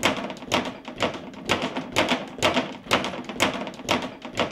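Speed bag being punched in a steady rhythm, about two strong strikes a second with lighter hits between.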